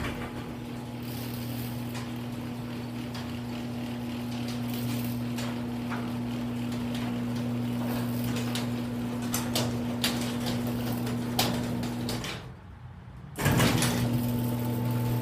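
Genie garage door opener motor running steadily, driving the door through its travel, with scattered clicks and rattles from the moving door. It stops about twelve seconds in and starts again about a second later.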